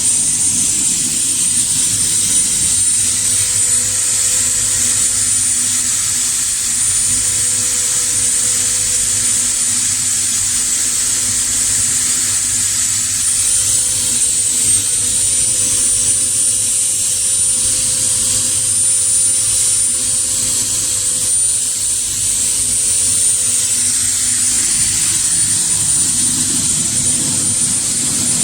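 A machine or power tool running steadily without a break, with a strong high hiss, a thin high whine and a low, even hum.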